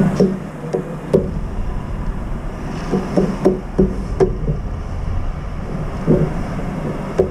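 A crow's beak pecking and tapping against a metal feeding bowl: irregular clinking knocks, each with a short ring, coming in three clusters.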